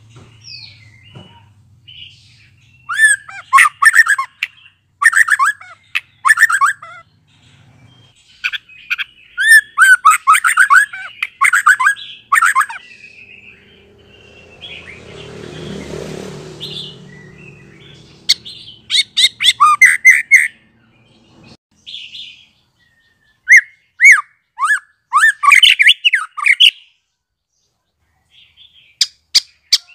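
White-rumped shama (murai batu), a young male just out of its spotted juvenile plumage, singing in loud bursts of rapid chirping phrases separated by pauses of a few seconds. About halfway through, a rushing noise swells and fades during a gap in the song.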